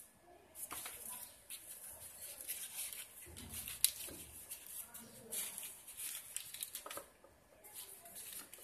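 Folded paper boat crinkling and rustling in irregular crackles as hands pull it open, with one sharper crackle near the middle.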